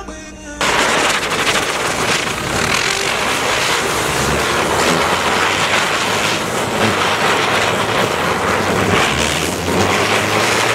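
Bundles of matches igniting in rapid succession in a chain reaction, a loud dense crackling hiss of many match heads flaring at once. It starts abruptly about half a second in.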